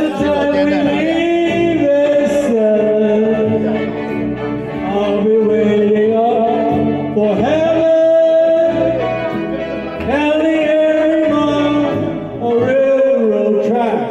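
Karaoke backing track with a man singing into a microphone over it, his voice amplified through the speakers in long held notes.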